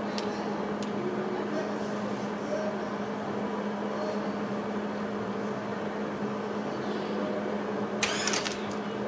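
A steady electrical hum from a Hobart Handler 140 wire-feed welder, with a short crackling burst of the welding arc about eight seconds in.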